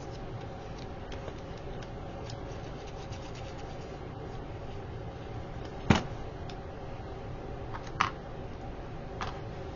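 Paper craft pieces being handled on a work table: faint rubbing and light ticks over a steady hum. Two sharp taps stand out about six and eight seconds in, with a softer one just after.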